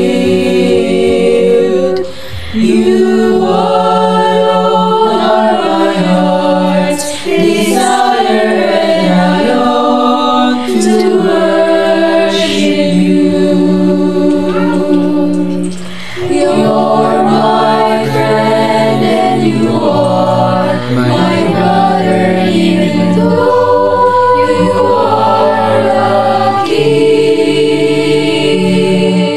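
Mixed choir of teenage boys and girls singing an English worship song a cappella in harmony, with short breaks for breath about two seconds in and again around the middle.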